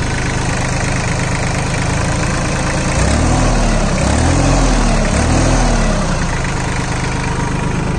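Sonalika Tiger GT 26 mini tractor's Mitsubishi diesel engine idling freely at about 1000 RPM. In the middle its pitch rises and falls three times in quick succession, then it settles back to a steady idle.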